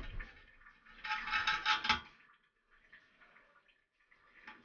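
Scraping and clinking inside a porcelain toilet tank as the tank-to-bowl bolts are tightened by hand, loudest for about a second from one second in, then a few faint scrapes and clicks.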